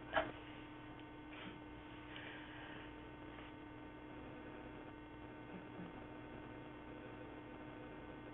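Faint steady electrical mains hum on the recording, a low tone with a few weaker higher tones, broken once by a short sharp click just after the start.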